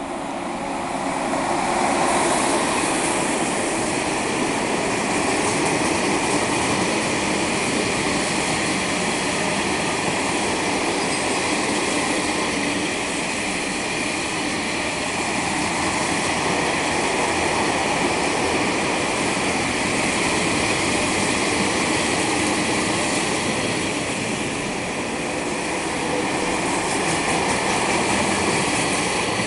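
Freight train passing: a locomotive and a long line of wagons rolling over the rails, a steady loud rumble and hiss of wheels on track.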